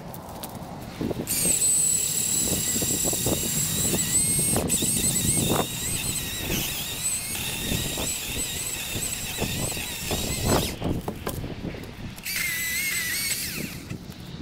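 Milwaukee M18 Fuel battery chainsaw running with a high-pitched electric whine as it cuts cedar, its pitch dipping under load. It runs for about nine seconds, stops, then makes a shorter burst near the end, with knocks and crackles of branches and brush underneath.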